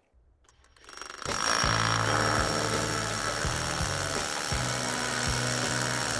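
DeWalt DCH133 cordless SDS rotary hammer starting up about a second in and hammer-drilling into hard quartzite with a 50 mm core bit, running steadily with a high whine. Background music plays over the drilling.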